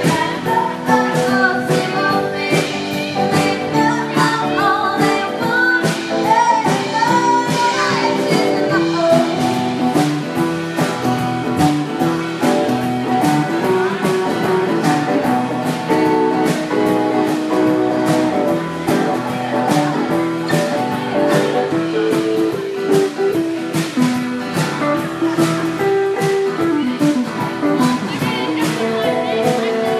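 Live band playing a cover song: acoustic and electric guitars over a steady drum beat, with a sung lead vocal most prominent in the first third.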